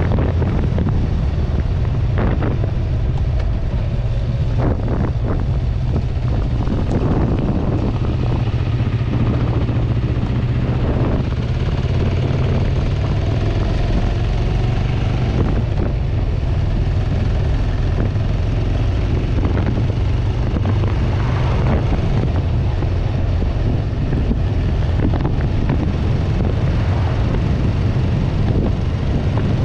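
Wind buffeting the microphone of a handlebar-mounted action camera over the steady running of a 1994 Kawasaki Vulcan 500's parallel-twin engine at cruising speed.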